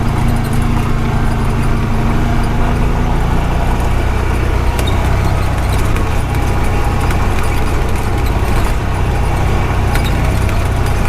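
Honda Pioneer 520 side-by-side's single-cylinder engine running steadily while driving along a rough dirt logging road, with scattered clicks and rattles from the ride.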